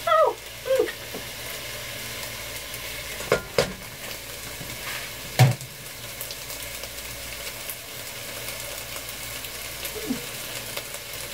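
Chopped apples sizzling steadily in rendered sausage fat in a skillet. A few sharp knocks sound, two close together about three and a half seconds in and another near five and a half seconds.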